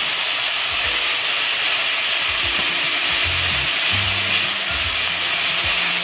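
Shredded cabbage slaw sizzling as it fries in a pan, stirred with a wooden spoon while it cooks down.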